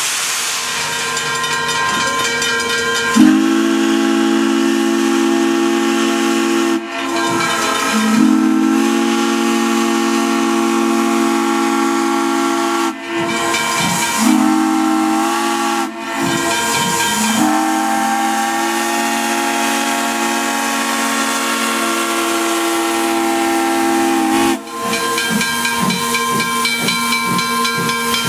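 Steam locomotive whistle sounding a chord in four blasts, long, long, short, long: the grade-crossing signal. A steady hiss of escaping steam runs underneath.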